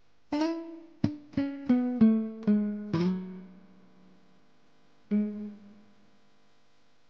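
Background music: single plucked guitar notes, a quick run of about seven stepping down in pitch, then one more note after a short pause, each left to ring out.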